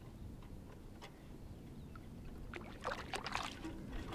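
Water splashing and swirling about three seconds in as a released bowfin kicks away from the side of the boat.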